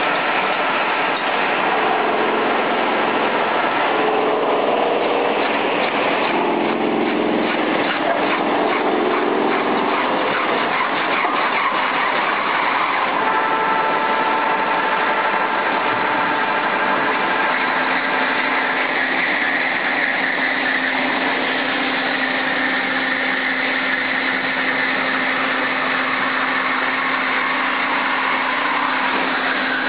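Jusan rotary veneer peeling lathe running, its knife cutting into a spinning log to round it into a smooth cylinder: a steady, loud mechanical din of drive and cutting. A steady low hum joins it about two-thirds of the way through.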